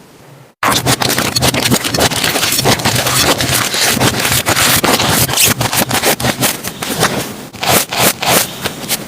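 Slime being squeezed and worked by hand close to the microphone: a dense run of rapid crackling, popping clicks, starting after a brief dropout about half a second in.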